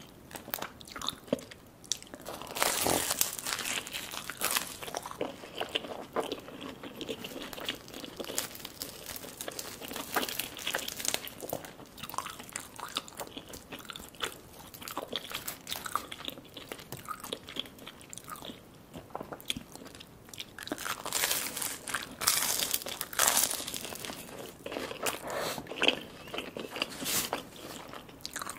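Close-miked crunching bites into the crisp, deep-fried pastry of a chicken samosa, with chewing in between. The crunching is densest about three seconds in and again past twenty seconds.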